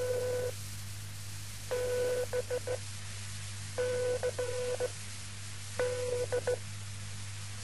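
Telephone-like electronic beeps: a held tone followed by a few quick stuttering beeps, repeating in groups about every two seconds, over a steady hiss and low hum.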